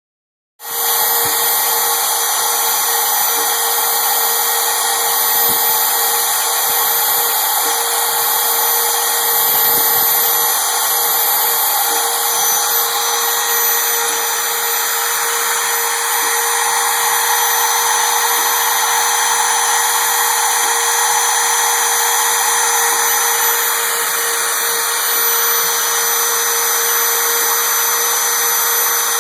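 CNC router spindle running at speed, its bit milling a Corian slab: a steady high whine over a constant cutting hiss.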